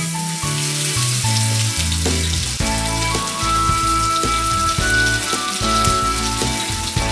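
Zucchini fritter batter sizzling in hot oil in a skillet, the hiss starting as the first spoonful goes in, under background music.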